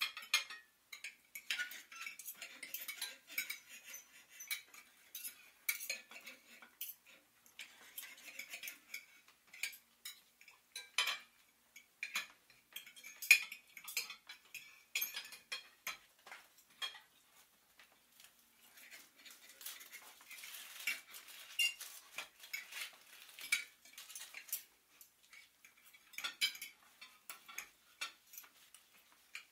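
Cutlery and dishes clinking and tapping at irregular intervals, with light scraping in between; one sharper clink a little before halfway.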